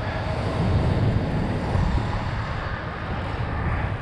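Steady outdoor rumble of wind buffeting the microphone over a background of passing vehicle traffic.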